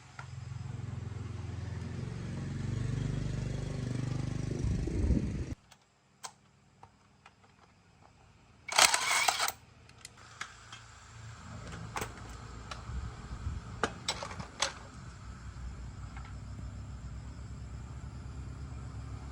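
Motorbike engine running with its pitch and level rising, then cutting off abruptly about five seconds in. A few clicks and a short loud hiss follow, then the engine runs again at a steady low idle with scattered clicks over it.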